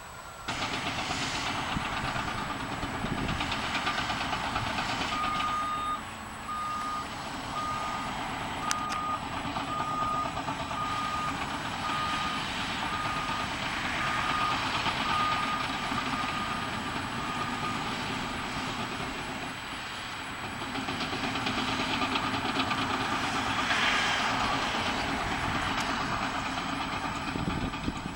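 Heavy construction machinery engine running, with a reversing alarm beeping steadily about once a second through the middle stretch.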